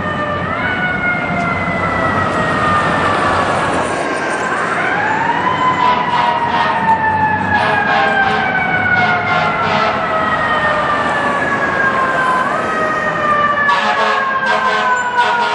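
Fire truck's mechanical siren wailing: three times it winds up quickly in pitch, then coasts slowly down over several seconds, over the rumble of street traffic.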